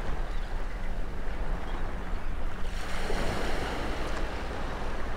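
Small surf waves washing and lapping, with a steady low rumble of wind on the microphone. A louder wash of water rises about three seconds in and fades about a second later.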